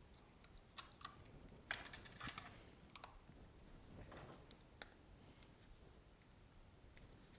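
Faint, scattered small clicks and brief light scraping from handling an iPhone 8's logic board and metal housing with gloved hands and a tool, the busiest cluster about two seconds in.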